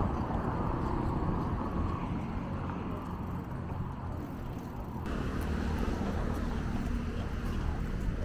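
Street traffic noise: the steady rumble of motor vehicles running along the road. The sound changes abruptly about five seconds in.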